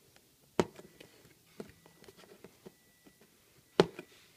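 Action figure packaging being handled and pried at: two sharp clacks, about half a second in and near the end, with lighter ticking and crackling between.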